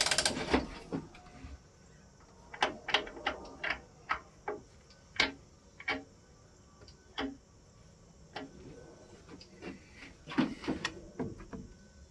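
Hand tools and parts being handled at a drill press: a short loud clatter at the start, then irregular sharp clicks and knocks with gaps between them.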